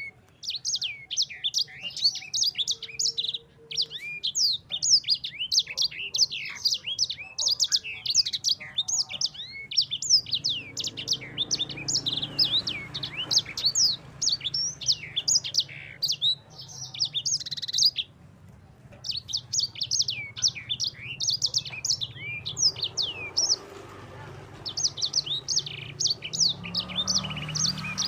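Sanger songbird singing a long, fast rolling song of high chirps and trills, broken by one brief pause about two-thirds of the way through.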